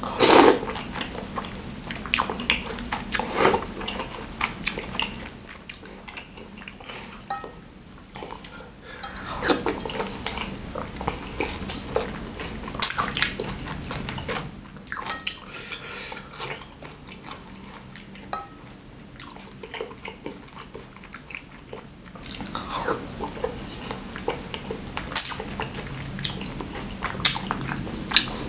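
Close-miked eating of spicy noodles in broth: slurping, chewing and sipping, with a metal fork and a wooden spoon tapping and scraping a ceramic bowl. It opens with a loud slurp of noodles.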